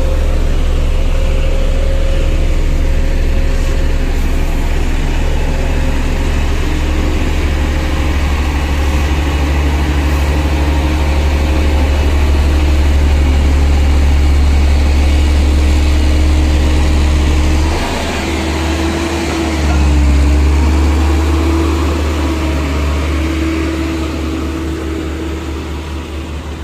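Single-drum road roller's diesel engine running close by with a heavy, deep steady hum. About eighteen seconds in the deep hum drops out, comes back briefly, then stops, while the engine keeps running and fades near the end as the roller moves off.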